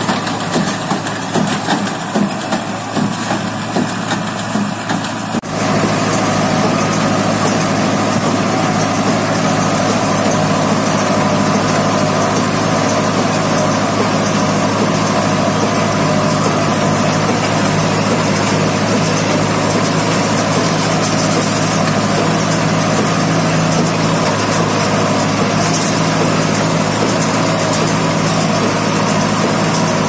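Mahindra 575 Yuvo tractor's diesel engine running steadily while it drives a square baler through the PTO shaft, the baler's pickup working along with it. About five and a half seconds in, the sound jumps to a louder, steadier engine drone.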